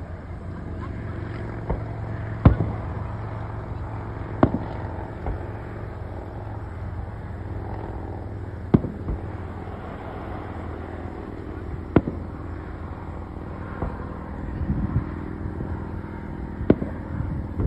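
Fireworks going off: single sharp bangs every few seconds, about seven in all, the loudest about two and a half seconds in, over a steady low rumble.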